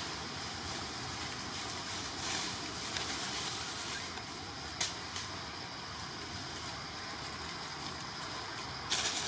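Steady outdoor forest background with a faint, even high-pitched hum, broken by a few brief rustles and snaps about two to three seconds in, once near the middle and more loudly near the end, as of small animals moving through twigs and leaves.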